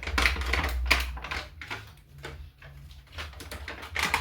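Quick, irregular clicks and rustles of groceries and their packaging being handled, with a low rumble in about the first second.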